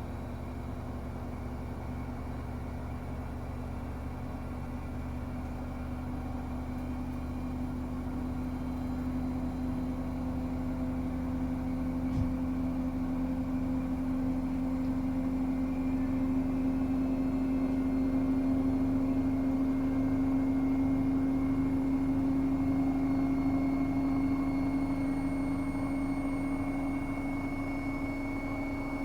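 Bosch Serie 8 WAW32590 front-loading washing machine running, with a steady motor whine that creeps slightly up in pitch and grows louder toward the middle.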